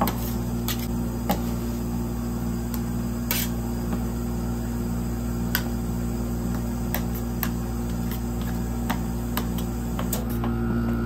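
Metal spatulas clicking and scraping on the steel cold plate of a rolled-ice-cream machine, a few sharp taps scattered through, over the steady hum of the machine's refrigeration.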